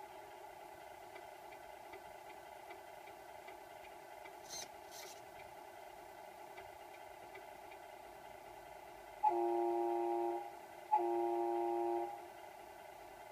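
Simulated truck air horn from a Tamiya MFC-01 sound unit's speaker, sounded in two blasts of about a second each near the end, over a steady hum of the unit's diesel engine idle sound.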